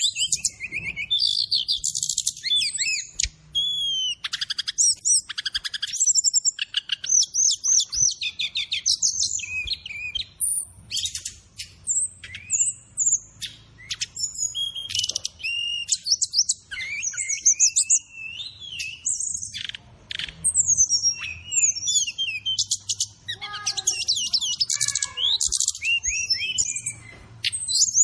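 Brown-chested jungle flycatcher singing a long, varied song of rapid trills, chips and short rising and falling whistles, one phrase after another with barely a pause, with imitated phrases of other birds woven in.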